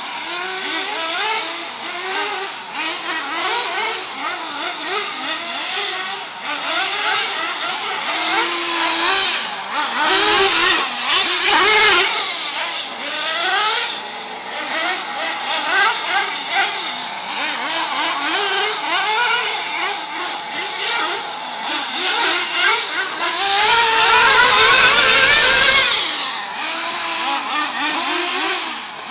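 Several radio-controlled off-road cars racing around a dirt track, their motors revving up and down over one another without a break. About two-thirds of the way through, one gets louder for a couple of seconds with a rising rev.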